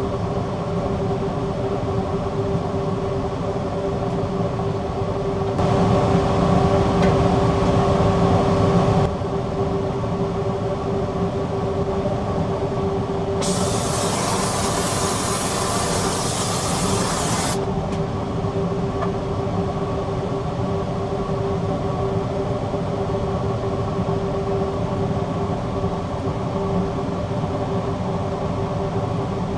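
Steady running of workshop machinery: a low roar with a constant hum. It gets louder for about three seconds from around six seconds in, and a bright hiss joins for about four seconds near the middle.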